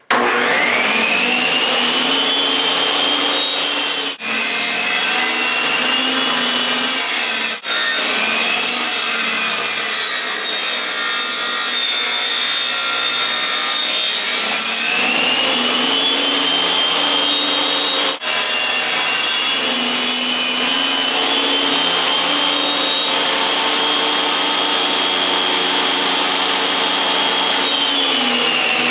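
Table saw starting up with a rising whine and running at speed while its blade cuts a notch along a pine 2x4, the whine dipping under load as the board is fed through. The motor begins to wind down near the end.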